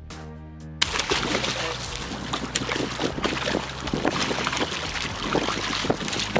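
A hooked fish thrashing at the surface of shallow water, a dense run of irregular splashes that starts suddenly about a second in. Just before it, background music is heard briefly.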